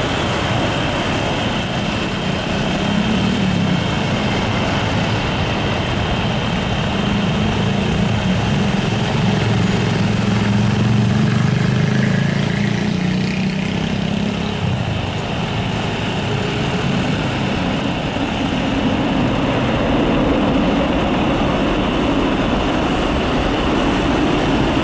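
Four-engined Boeing 747-400F jet engines running as the freighter touches down and rolls out, a steady loud jet noise with a deep rumble that is strongest for several seconds after touchdown and then eases.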